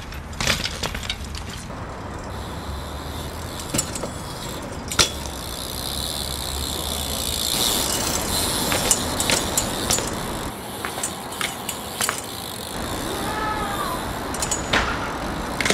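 BMX bike being ridden on pavement: a steady rolling rush of tyres with a dozen or so sharp knocks and clacks from the frame and wheels striking obstacles and landing, under the general noise of a city street.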